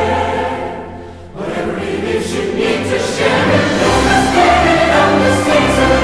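Choral music with orchestral accompaniment. The music fades away about a second in, and a new sung passage starts and builds.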